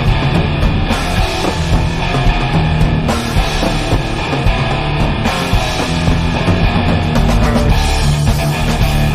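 Rock background music with electric guitar and drums.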